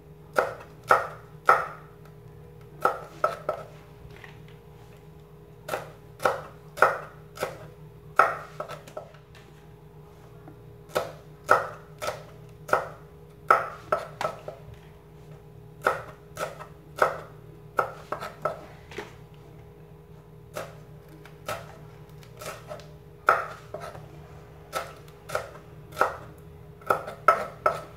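Steel cleaver chopping red chillies and shallots on a wooden cutting board: sharp knocks coming in quick runs of two to four, with short pauses between runs.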